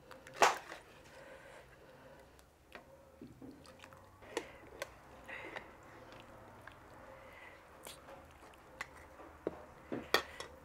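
Ladle knocking against an enamel soup pot and dipping and pouring broth into a clay bowl: sharp clinks, the loudest about half a second in and several more near the end, with soft splashing of liquid between them.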